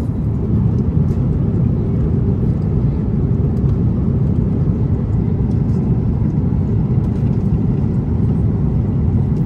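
Steady low rumble of jet airliner cabin noise in flight, the engines and rushing air heard from a passenger seat.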